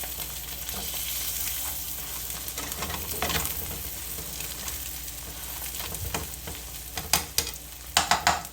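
Eggs sizzling in a frying pan, a steady hiss of hot fat, cooked until fried hard. A few sharp clicks near the end.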